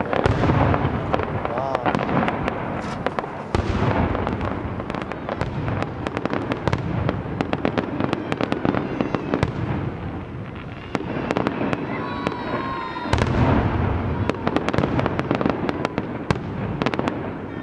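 Fireworks display: aerial shells bursting with deep booms and dense crackling throughout. Heavy booms come at the start, about three and a half seconds in, and around thirteen seconds in.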